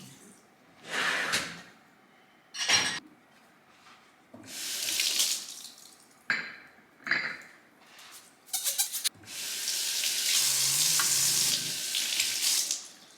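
Kitchen tap running in several short spurts and then steadily for about three seconds near the end, with a few sharp knocks, as reusable straws are hand-washed under it.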